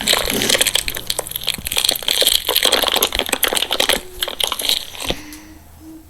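Slime being squeezed and worked by hand, giving dense wet crackling and popping clicks. The crackling thins out and grows quieter near the end.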